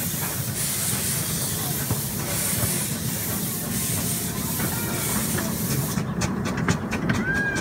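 Ridable miniature live-steam locomotive on the move, hissing steam over a low rumble. About six seconds in, the hiss cuts off and a fast, even clicking rhythm takes over.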